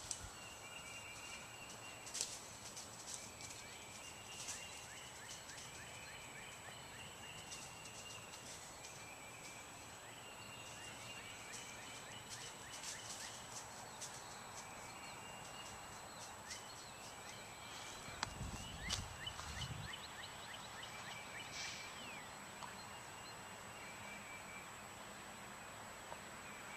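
Faint birdsong outdoors: short chirping phrases repeated every second or two, with scattered sharp clicks and a low thud about eighteen seconds in.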